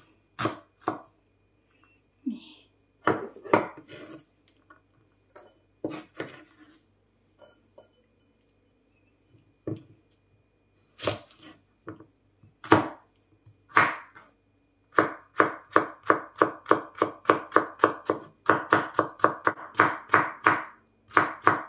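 Kitchen knife cutting on a wooden cutting board: scattered single cuts through shallot and chilli, then fast, even chopping of cucumber at about four strokes a second in the last third.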